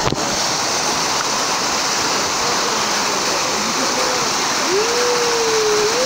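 Waterfall: a steady, loud rush of white water pouring over rocks close by, with a sharp knock at the very start.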